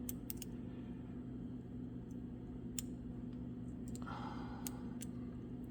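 Lock pick working the pin stack of a Master Lock padlock under tension: a few scattered small clicks, with a short scraping pass of the pick about four seconds in.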